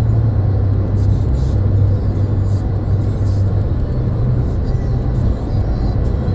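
Car driving along with a steady low road and engine rumble, with music playing over it.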